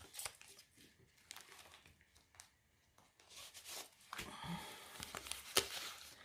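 Paper and plastic packets rustling and crinkling as they are handled, with a few light clicks; it goes nearly quiet for about a second in the middle, then the rustling picks up again with one sharper click near the end.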